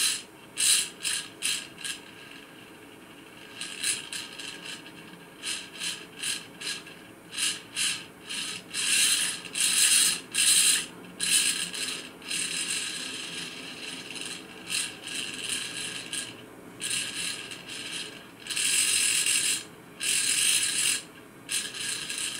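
Servo motor and reduction gear train of a Clifton Precision static air temperature indicator whirring in repeated bursts as it drives the pointer to follow a hand-turned synchro transmitter. Most bursts are short, with a few longer runs about nine seconds in and near the end.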